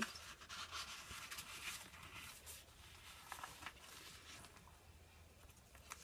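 Faint rustling and brushing of paper as the pages, tags and flaps of a handmade paper journal are handled and turned, a little livelier in the first half.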